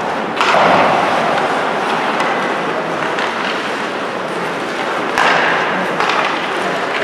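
Ice hockey play on the rink: skates scraping and carving on the ice, with a louder burst of scraping about half a second in and a sharp knock about five seconds in.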